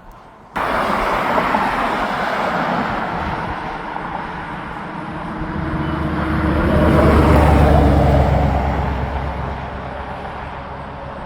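Highway traffic noise, with a heavy vehicle's engine drone swelling as it passes, loudest about seven seconds in, then fading.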